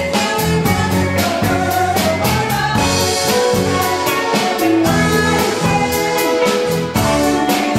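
Live rock cover band playing loudly: a woman singing into a microphone over electric guitar and a drum kit keeping a steady beat.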